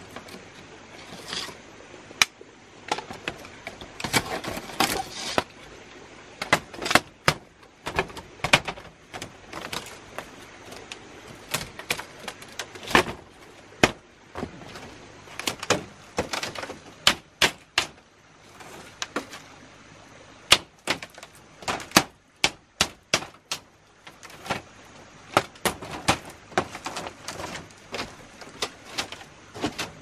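Irregular series of sharp knocks and cracks from hand-work with a tool, sometimes several in quick succession, sometimes a second or more apart.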